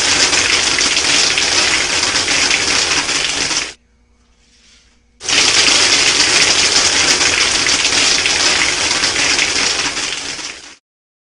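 Homemade soda-bottle airsoft machine gun test-fired on compressed air: the blowgun releases a loud rush of air and airsoft pellets rattle out of the brake-line barrel in a continuous stream. Two long bursts: the first cuts off a little under four seconds in, and the second starts about a second and a half later and runs almost to the end.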